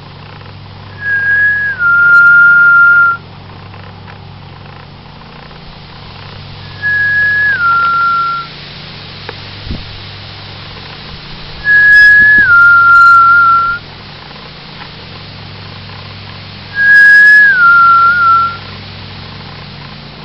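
A person whistling four loud two-note phrases, each a held higher note that steps down to a lower one, spaced about five seconds apart.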